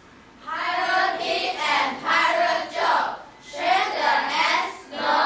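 A group of children's voices in unison, in phrases of about a second with short breaks, like a chant.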